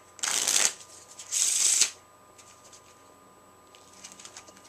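A deck of playing cards riffle-shuffled twice in quick succession, each riffle a brisk, loud fluttering rattle of about half a second. A few faint card clicks follow near the end as the deck is handled.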